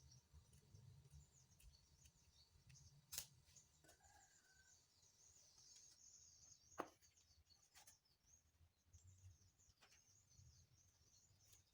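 Near silence: a faint, high chirping runs throughout, with two sharp clicks about three and seven seconds in.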